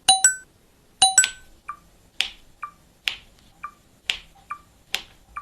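A regular pattern of short electronic beeps and sharp clicks, about one of each per second. The first two clicks come in quick pairs with a brief ringing tone.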